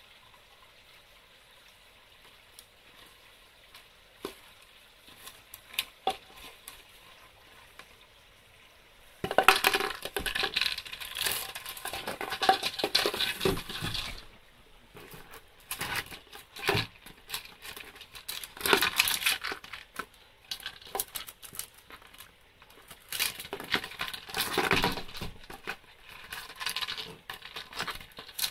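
A dog nosing, pushing and picking up a plastic tub on paving stones. It is quiet with a few faint clicks for about nine seconds, then comes irregular clattering, scraping and crinkling in bursts with short pauses.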